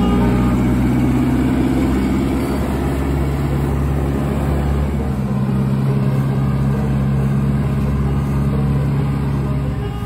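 Engine of an old John Deere combine running steadily, its speed shifting a little in the first few seconds.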